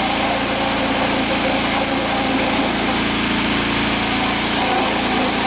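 A small engine running steadily at an even speed, with a broad hiss over it.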